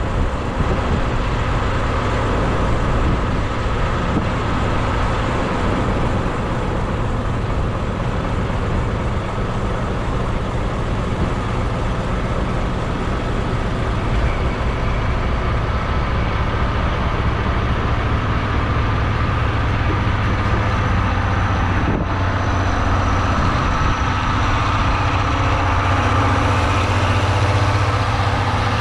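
Diesel locomotive of the Okuizumo Orochi trolley train running steadily with a low hum as the train pulls slowly out. The sound brightens and grows a little louder near the end as the coaches draw past.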